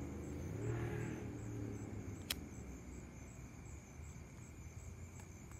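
A car passing, its engine rumble swelling and fading over the first two seconds. A little over two seconds in comes a single sharp click, as a lighter is struck to light a cigarette.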